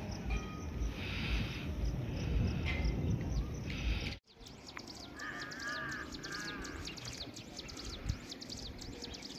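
Outdoor hillside ambience: wind buffeting the microphone with a low rumble, then after a sudden cut, many quick high chirps from birds or insects, with two short harsh calls about a second after the cut.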